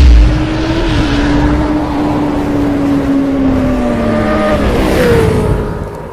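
Sound-effect motorcycle engine at high revs, with a loud hit at the start. The held engine note sags slowly, then shifts up about five seconds in and fades away.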